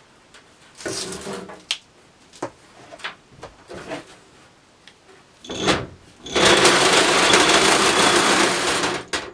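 A few knocks and clicks of handling, then a homemade belt sander, driven by a hoverboard wheel motor, runs loudly and steadily for about three seconds and stops just before the end.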